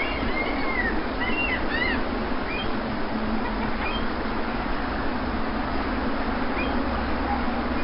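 Steady wash of sea surf with birds chirping over it: a cluster of short rising and falling calls in the first couple of seconds, then only a few faint ones.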